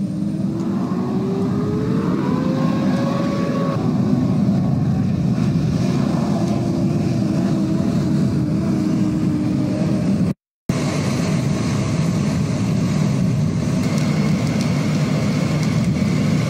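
Steady low rumble of a wildfire burning buildings, with a vehicle engine rising in pitch over the first few seconds and later holding a lower, slowly falling note. The sound cuts out for a moment about ten seconds in.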